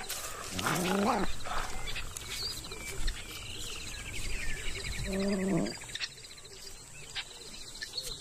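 Two short pitched animal calls, the first rising in pitch about a second in and the second steadier about five seconds in, over a fast high trill in the background.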